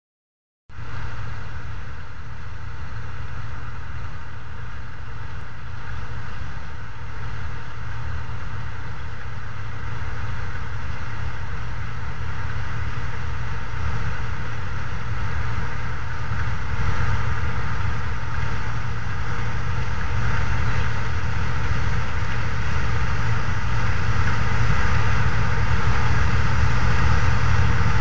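John Deere 9870 combine running steadily while harvesting soybeans, a continuous engine and machinery drone with a strong low hum that slowly grows louder as the combine comes closer.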